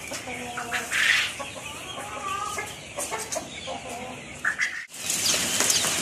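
A mixed flock of hens clucking, with short pitched calls. About five seconds in, after a sudden break, many young chicks start peeping together in a brooder.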